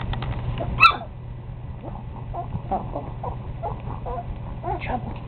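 Young puppies whimpering and squeaking in short high cries, with one sharp yelp about a second in, the loudest sound.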